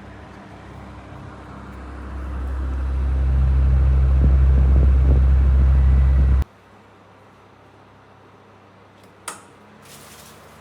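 Low rumble from a National Windy Mate F-ER302 box fan running. It builds over about two seconds, holds steady, then cuts off abruptly; a single sharp click follows near the end.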